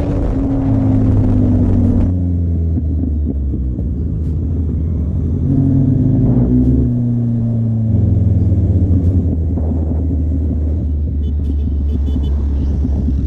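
Motorcycle engines running with a deep, steady rumble; the engine note falls twice, about a second in and again around six seconds in, as the bikes change speed.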